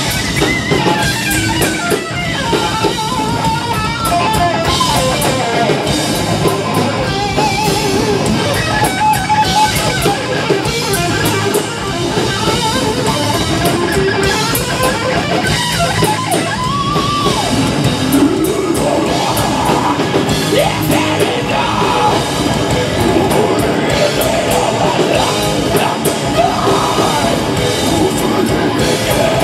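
Heavy metal band playing live: distorted electric guitar, bass guitar and a drum kit, with a vocalist singing into the microphone.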